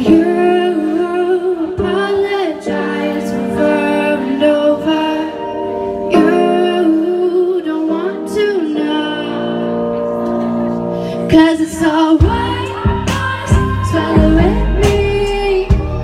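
Live band performance: a woman sings into a microphone over electric guitar and keys. The deep bass and beat drop away for most of the passage, then come back in heavily about twelve seconds in.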